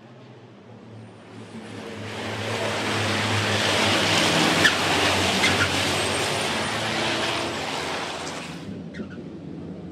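A pack of turbodiesel race trucks passing close by at speed. The engine sound builds over about two seconds, peaks near the middle with a couple of sharp clicks, then fades away.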